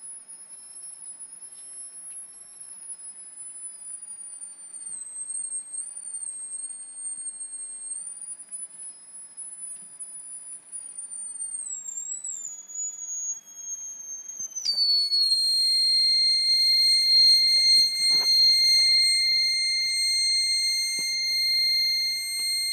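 High-pitched electronic whine from a Royer oscillator driving a ferrite-core transformer, wavering and sliding slowly lower. About two-thirds through it drops suddenly to a lower, steadier and louder tone as the circuit's operating frequency shifts. A few faint taps are heard near the end.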